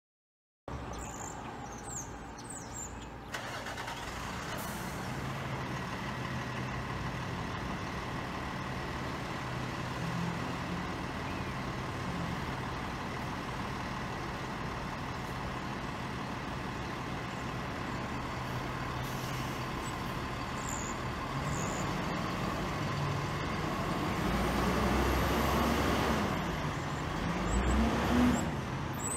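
Box truck engine idling steadily, then revving up and down as the truck pulls away near the end.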